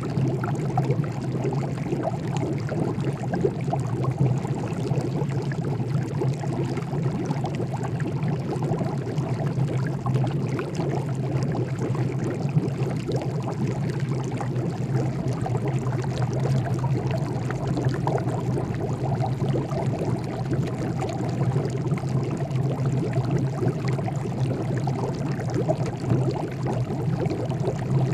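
Water boiling: a dense, steady bubbling with a low, even hum underneath.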